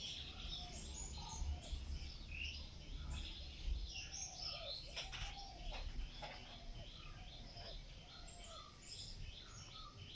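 Birds chirping: a steady run of short high chirps, with lower arching calls repeated every second or so, over a faint low rumble.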